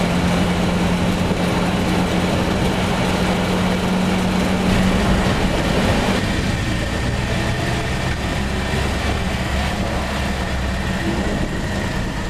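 1960 Austin LD light truck under way, its engine and road noise heard inside the cab. The steady engine note drops about halfway through.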